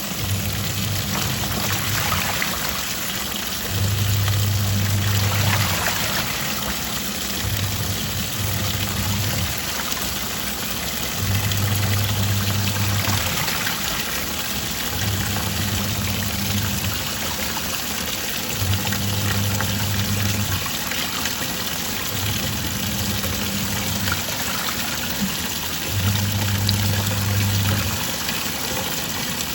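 Twin-tub washing machine in its wash cycle: water churning and sloshing in the tub. The motor hums in short runs of one to two seconds that start and stop every three to four seconds as the pulsator reverses direction.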